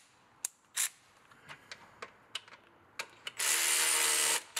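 A few light clicks of a bolt and tool being handled, then a power driver spinning a throttle body bolt into the plastic intake manifold threads for about a second at a steady pitch, stopping short.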